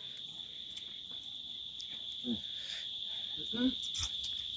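Insects chirring in a steady, unbroken high-pitched drone, with a couple of brief murmurs of a man's voice about two and three and a half seconds in.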